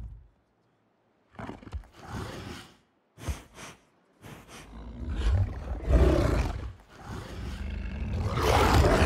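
Giant film wolf growling and snarling: a few short growls starting about a second and a half in, then a rough snarl that builds and is loudest near the end.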